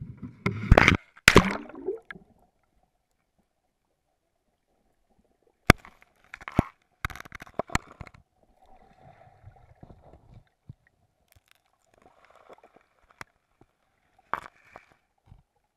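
Water splashing at the surface as the camera goes under, then muffled underwater sounds: a run of sharp clicks and gurgling bursts about six seconds in, with fainter gurgles and a last click near the end.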